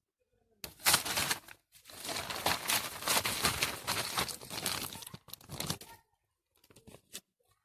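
Plastic bag crinkling and rustling as it is handled: a short burst about a second in, then a longer stretch from about two to six seconds.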